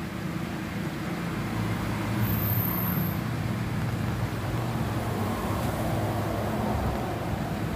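Background road traffic: a vehicle engine rumbling steadily, swelling about two seconds in and easing near the end.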